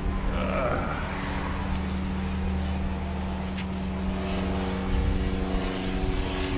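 Small propeller airplane flying over, its engine giving a steady hum.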